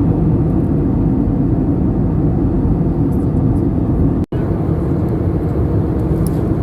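Steady low rumble of a vehicle travelling, cut off for an instant about four seconds in.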